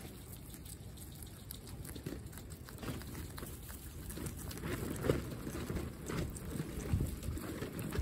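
Guinea pigs munching fresh greens, a patter of small crunches and nibbles that grows busier after a couple of seconds, over a low rumble of wind on the microphone.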